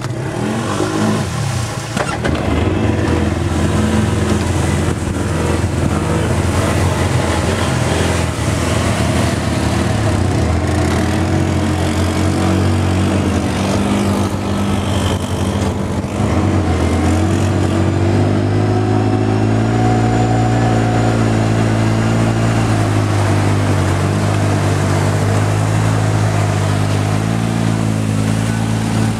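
ATV engine running under throttle, its pitch rising and falling with the revs, then held higher and steadier for a long stretch in the second half.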